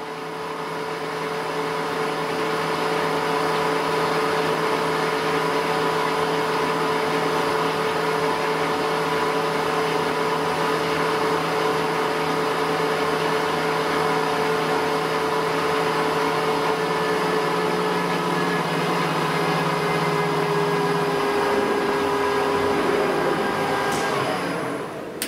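CNC lathe spindle and headstock drive running with no cut, commanded at 1000 rpm: a steady whine of several tones that builds up over the first couple of seconds, holds, then falls as the spindle winds down near the end, with a sharp click just before it dies away.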